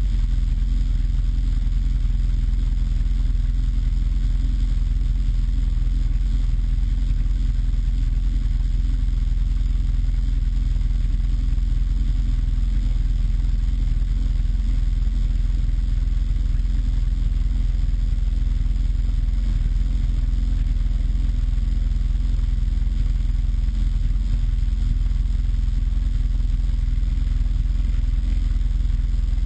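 Snowmobile engine running at a steady, unchanging speed.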